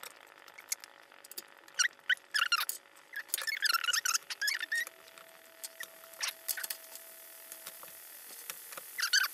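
Metal tongs clicking and scraping against a stainless-steel pressure cooker pot as pieces of saucy braised beef short ribs are lifted out and laid on a griddle tray. The clicks come singly and then in a quick cluster a couple of seconds in.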